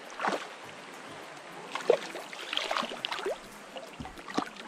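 Shallow, rocky creek water running, with a handful of small, sharp splashes, the sharpest about two seconds in.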